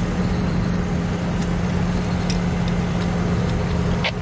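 Lada Niva engine running steadily at low revs as the car crawls over a log seesaw obstacle, with a short sharp knock near the end.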